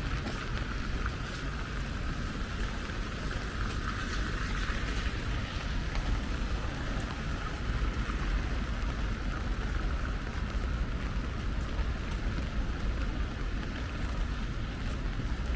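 Steady light rain falling, with faint scattered drop ticks over a constant low rumble.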